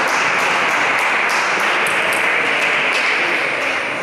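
Celluloid-plastic table tennis ball clicking sharply on the table and bats, a few separate hits about a second apart, over a loud, steady hiss of hall noise.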